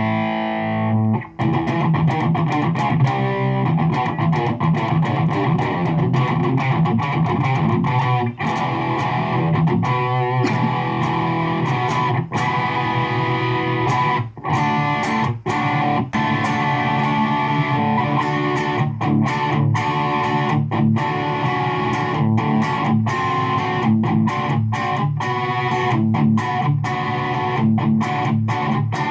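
Hagstrom Ultra Swede electric guitar played continuously through a Fender Champion 20 amplifier, a steady stream of picked notes and chords, as heard through a phone's microphone.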